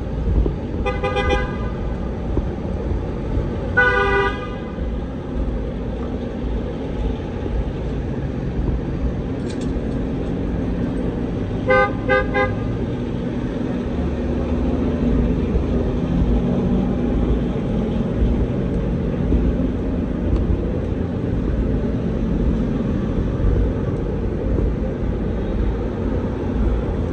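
Manhattan street traffic: a steady low rumble of engines, with vehicle horns honking three short times, twice in the first few seconds and once about twelve seconds in.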